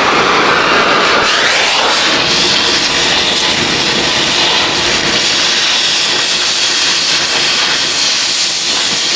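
Oxy-fuel cutting torch flame hissing steadily as it burns through a rusted exhaust flange bolt. About a second and a half in, the hiss turns higher and brighter and holds there.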